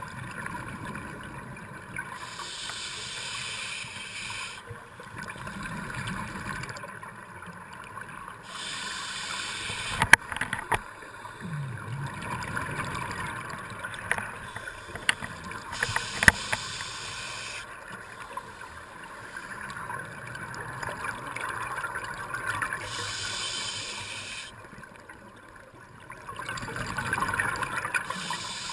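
Scuba breathing through a regulator, heard underwater: a hissing inhale every seven seconds or so, alternating with the bubbling rush of each exhale. A few sharp knocks stand out, about ten and sixteen seconds in.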